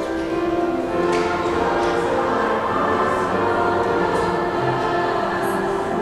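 Mixed high school choir singing long, held chords, with a crisp sibilant consonant from the voices about a second in and again near the end.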